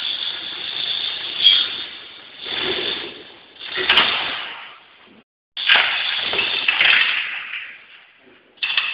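Metal clattering and rattling from a large stainless steel mixing vat being handled and hooked to a hoist, in irregular noisy surges.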